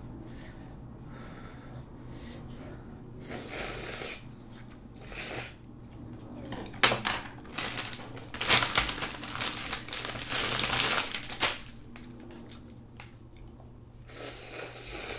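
Plastic crinkling and rustling as a bag or wrapper is handled, loudest in the middle stretch. Near the end, a short burst of noodles being slurped.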